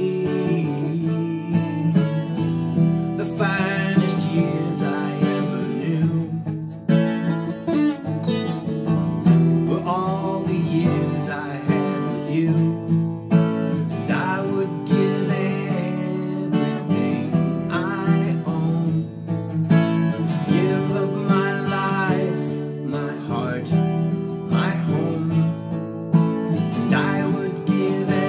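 Twelve-string acoustic guitar played solo: an instrumental passage of strummed chords with a moving melody line.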